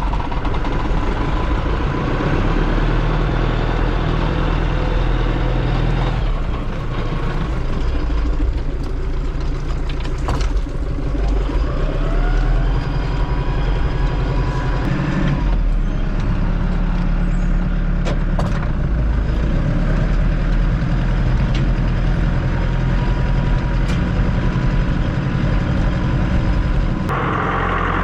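Heavy farm vehicle's engine running steadily, with a rising whine around the middle.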